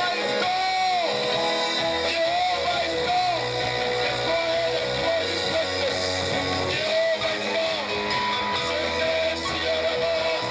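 Music: singing over guitar and other instruments.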